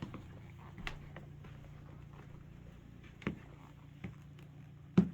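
A few short, sharp clicks and knocks, four in all with the last the loudest, over a faint steady low hum of room tone.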